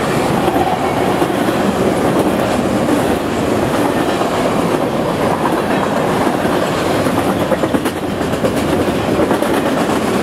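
Intermodal freight cars carrying truck trailers rolling past: steady, loud wheel-on-rail noise with the clickety-clack of wheels over the rail joints.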